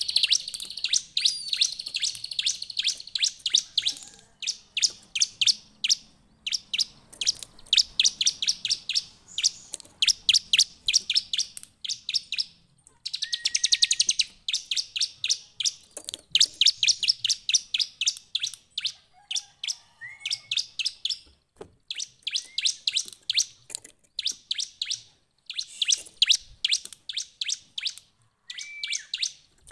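Bar-winged prinia (ciblek) singing: fast runs of sharp, high chirps, about six a second. Each run lasts a second or few, with short breaks between runs and an occasional note gliding upward.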